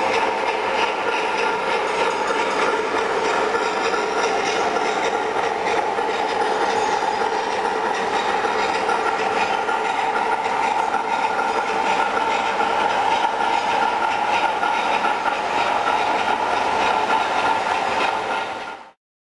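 O gauge model trains running on three-rail metal track: a steady whirring rattle of wheels and motor gears with faint clicking. It cuts off suddenly near the end.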